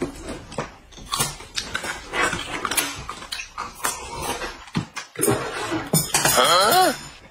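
Crunching and chewing of raw green onion stalks, a run of short crisp crunches. Near the end, a brief wavering whine.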